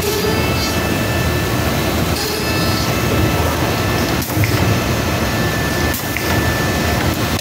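Computer-controlled woodworking machine running on a clamped wooden board: a steady mechanical noise with a faint high whine, and two sharp clicks in the second half.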